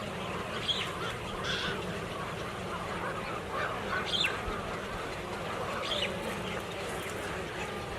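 A large flock of birds calling together, a continuous din with short, sharp calls standing out now and then.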